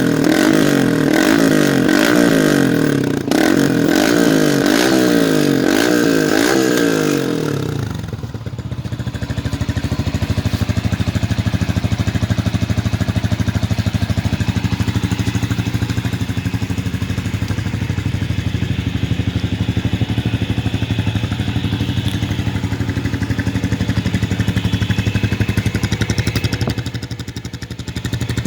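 Yamaha R15 v2's single-cylinder engine through a full-system Akrapovic exhaust. It is revved in quick repeated throttle blips, about one a second, for the first seven seconds, then drops to a steady idle.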